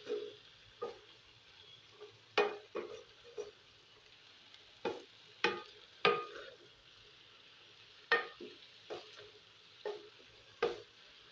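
Wooden spatula stirring diced potatoes and spinach in a coated wok, knocking against the pan at irregular moments about once a second. A faint sizzle of frying runs underneath.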